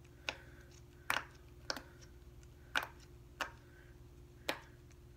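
Bubbles of a silicone pop-it fidget toy being pushed through by fingers, giving about six short, sharp pops at uneven intervals.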